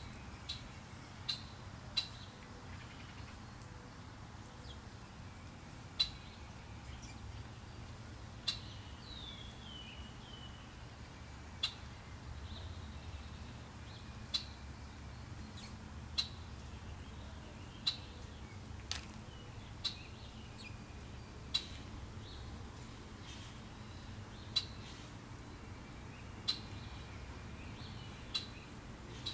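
Short, sharp bird chip notes repeat irregularly every one to three seconds. About nine seconds in there is one brief falling whistled call. A steady low outdoor rumble runs underneath.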